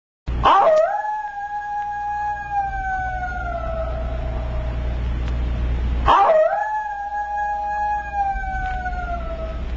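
A canine howling twice, each howl sweeping sharply up and then holding a long, slowly falling note for about four seconds, over a steady low rumble.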